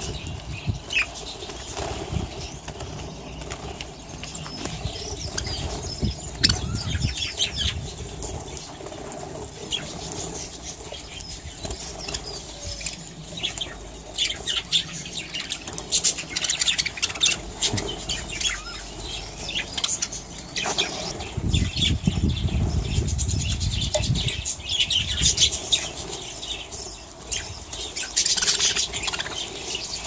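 Aviary budgerigars chirping and chattering, with wings flapping as birds flutter about; heavier flurries of flapping come near the start and again past the middle.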